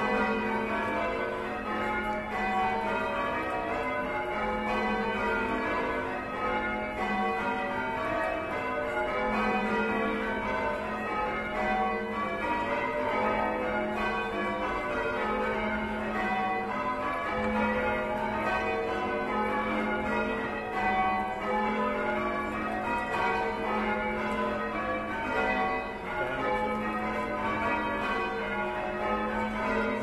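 Church tower bells being change rung by hand with ropes: a continuous, unbroken sequence of bell strikes overlapping and ringing into one another as the band rings the changes.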